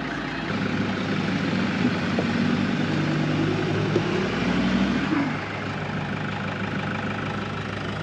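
A four-wheel drive's engine running as it pulls away. It grows louder about half a second in and drops back after about five seconds, over a steady low engine hum.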